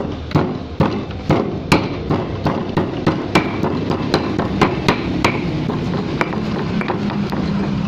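Peeled ginger root being pounded to crush it, with repeated sharp knocks about two a second that thin out near the end.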